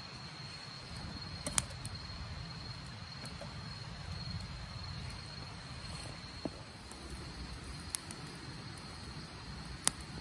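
Small wood fire burning under a cooking pot, giving a few sharp crackles, the loudest about a second and a half in and near the end. Behind it runs the steady high trill of crickets.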